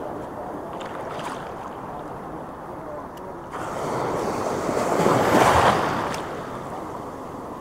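Sea waves washing at the shoreline. One wave surges up close and breaks about halfway through, the loudest moment, then the wash dies back. A few light clicks sound over it.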